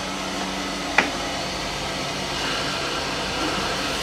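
Small electric motor running steadily, a hum over a hiss, with one sharp click about a second in.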